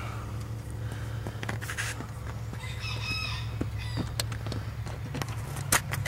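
A rooster crowing once, about halfway through, over a steady low hum. A few sharp clicks follow near the end.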